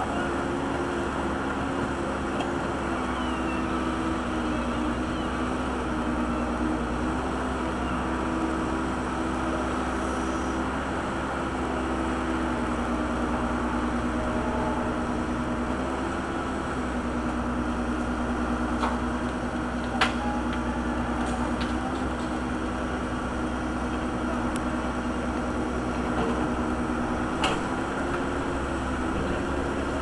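Case backhoe's engine running steadily while the hydraulic boom works, its pitch dipping and rising a little a few times. A few sharp clacks of metal or tool strikes, the loudest about two-thirds of the way in.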